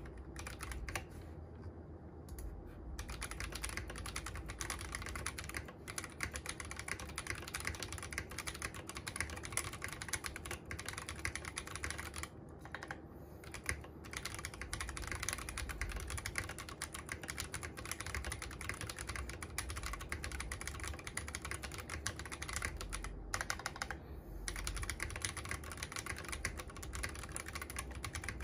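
Typing on an Akko MOD001 v2 mechanical keyboard: a steady run of key-switch clacks, with a couple of brief pauses, as a sound test of the reassembled board.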